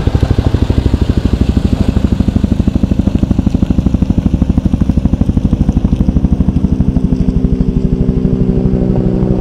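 Helicopter flying overhead, its rotor beating loudly in a fast, even pulse.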